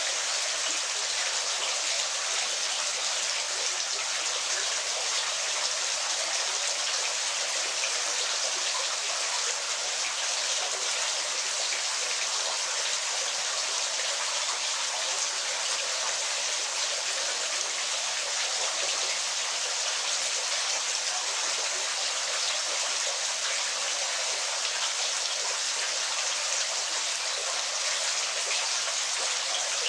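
Waterfall: a steady rush of splashing water, an even hiss that is bright and high with almost no low rumble.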